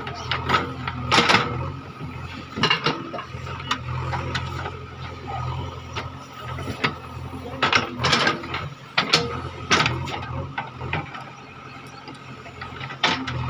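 JCB 3DX backhoe loader's diesel engine running under load, with repeated sharp metallic clanks and squeaks from the digging arm and bucket as it works.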